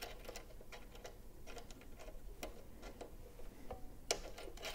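Faint, irregular small clicks of a three-pin foot-pedal plug being seated in its socket and its threaded locking collar being screwed down.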